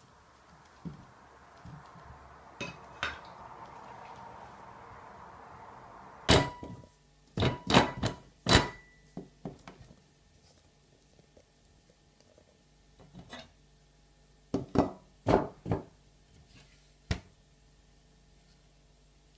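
Hard knocks and thunks as a plastic dog bowl stand and a ceramic plate are handled and set down on a wooden surface. One loud knock about six seconds in rings briefly, a cluster of knocks follows around eight seconds, and several more come around fifteen seconds. A faint rustling hiss runs through the first few seconds.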